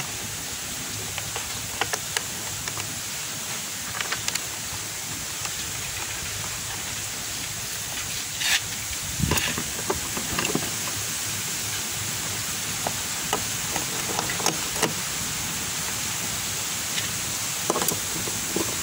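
Scattered light clicks and taps of screws being set and turned in with a long screwdriver on a motorcycle's plastic air filter cover, over a steady hiss. A louder knock comes about eight or nine seconds in.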